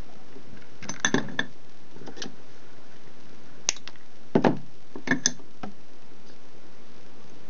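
Several sharp metallic clicks and clinks from small hand tools being handled, including flush side cutters snipping a length of copper solder wick, over a steady hiss.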